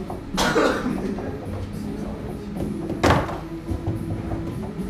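Two loud bangs from a foosball table in play, about three seconds apart, as the ball is struck hard and slams into the table.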